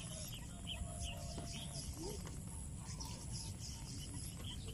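Faint, scattered bird chirps over a steady low background rumble.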